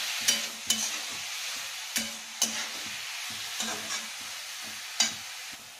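Grated beetroot frying and sizzling in ghee in a steel kadhai while a metal spatula stirs it, scraping the pan, with a few sharp knocks of the spatula against the pan now and then.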